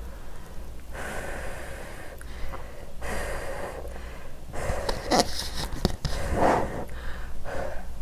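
A woman eating spicy Mala Buldak cup noodles close to the microphone: airy breathing and sucking noises as she slurps the noodles, with several short louder slurps in the second half.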